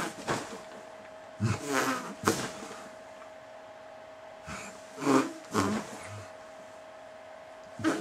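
A person's voice letting out short moans and gasps of pleasure in about four separate bursts, with pauses between them. A faint steady hum runs underneath.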